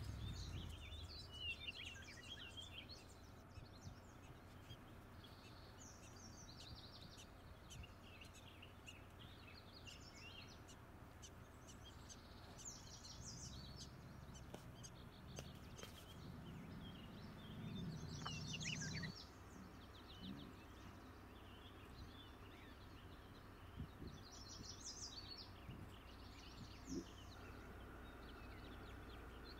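Wild songbirds chirping and calling in short, scattered phrases over a faint low outdoor rumble, which swells for a few seconds around the middle.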